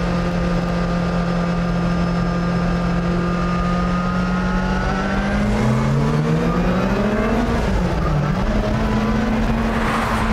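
Lancia Delta S4 rally car's turbocharged and supercharged four-cylinder engine, running at a steady note, then revving up about five seconds in, with a brief dip in pitch and a renewed rise near the end.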